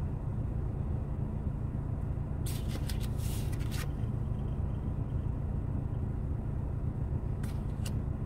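Steady low rumble, with a short crisp rustle of tarot cards being handled about two and a half seconds in and a couple of brief card clicks near the end.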